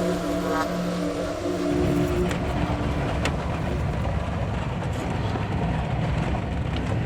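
Pickup truck driving over rutted, hard-frozen snow, with a heavy low rumble of tyres and body. A steady humming drone in the first second and a half gives way to the rumble.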